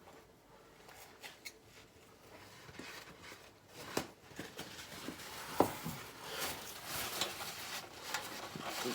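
Oily gloved hands gripping and twisting a spin-on oil filter that will not turn further, with faint rubbing and small clicks and one sharp knock about five and a half seconds in.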